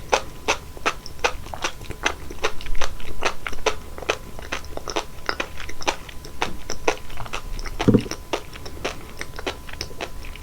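Close-miked chewing of sea grapes (umibudo seaweed), the tiny beads popping in quick crisp clicks, about three to four a second, with one duller thump about eight seconds in.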